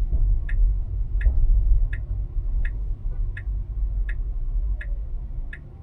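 Tesla turn signal ticking in the cabin, about four ticks every three seconds, over low road rumble that dies down near the end as the car pulls over and stops.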